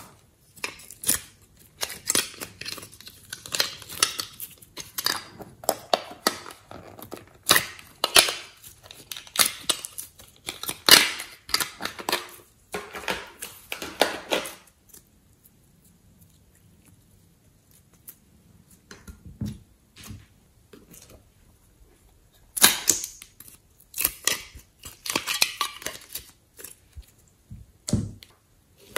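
Thick slime being squeezed and worked by hand, giving dense runs of sticky clicks, pops and crackles. The sound pauses for several seconds midway, with only a soft thump, then picks up again.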